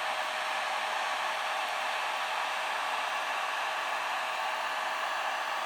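Heat gun running on its low setting: a steady blowing rush with a faint steady whine in it.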